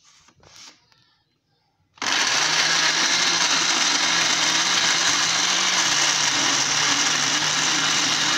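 Electric countertop blender: a couple of light knocks as the jar is seated on the base, then about two seconds in the motor starts abruptly and runs steadily, puréeing a jar of chopped tomatoes and onion.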